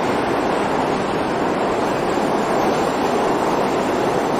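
Dutch NS double-decker electric passenger train passing close by a station platform: a steady rushing noise of wheels on rails and moving coaches.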